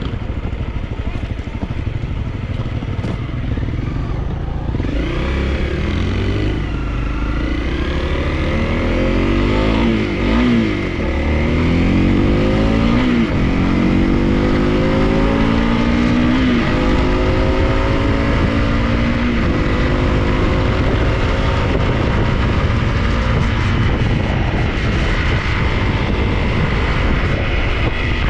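250 cc dual-sport motorcycle engine under way off-road, its pitch climbing and dropping again and again as it accelerates and shifts from about five seconds in to about seventeen seconds, then running at a steadier speed over a low rumble.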